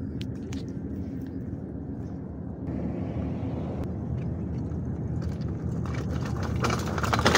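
A bicycle without brakes coasts down a rough slope: a steady rushing noise of tyres and wind, with a run of rattles and knocks in the last second or so.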